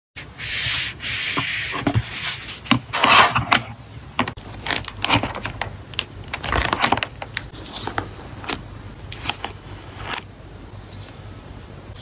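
Hands rubbing over a photocard binder's cover, then opening the binder and handling its clear plastic card sleeves. Several rubbing swishes are followed by scattered small clicks and taps, growing quieter after about ten seconds.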